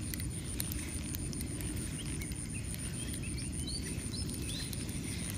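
Lakeside morning ambience: a handful of short, rising bird chirps in the middle, over a steady high-pitched insect drone and a low, even rumble.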